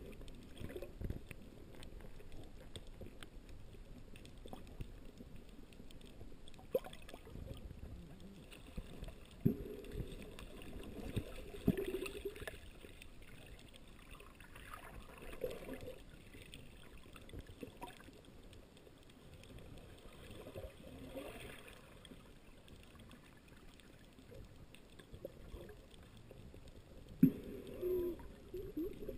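Underwater sound: a low rumble of water with scattered muffled knocks and short gurgles, the sharpest knock near the end.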